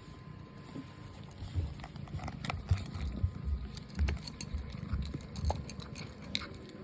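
Ragdoll cat eating dry food: irregular crunching with small clicks and soft knocks.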